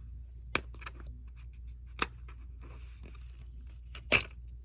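A DVD case and its paper inserts being handled: three sharp clicks, with light rustling between them.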